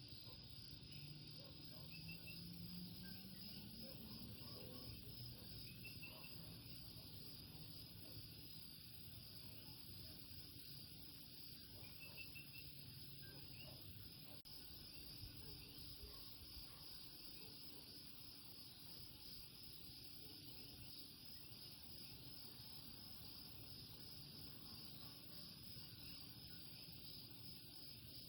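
Faint night chorus of Puerto Rican coquí frogs, a few scattered short chirps over a steady high trill of insects.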